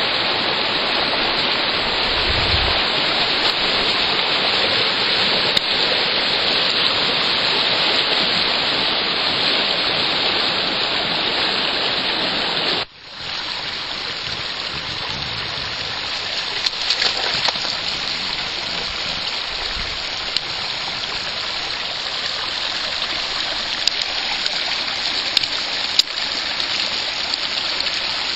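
River running high and fast after heavy rain and snowmelt: a steady rush of water. About halfway through it breaks off for a moment and comes back a little quieter.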